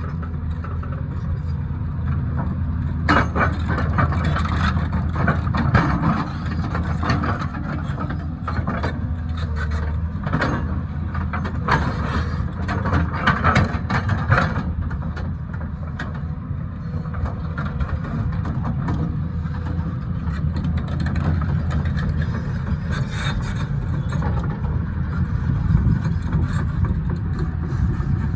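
Cat excavator's diesel engine running steadily, with a dense run of knocks and scrapes from about three to fifteen seconds in and again a little past the twenty-second mark as the machine works the rock.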